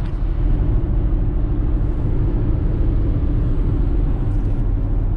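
Steady low rumble of a car's tyres and engine inside the cabin as it drives along the road.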